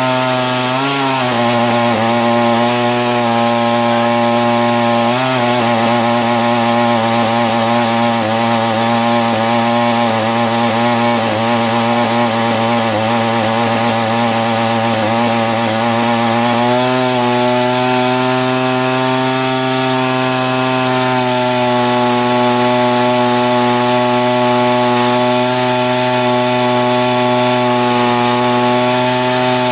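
Husqvarna 562 XP two-stroke chainsaw engine running at high speed under heavy load on a hydraulic brake, held around 7,000 rpm in the horizontal back-cut position to test a saw that has been quitting after about a minute in a back cut. The engine speed wavers for the first half, then picks up slightly about 17 seconds in and runs steadily.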